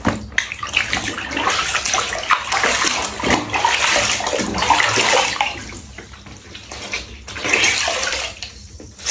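Running water splashing into a bathtub during a pet's bath, a steady hiss that dips briefly about six seconds in and again near the end.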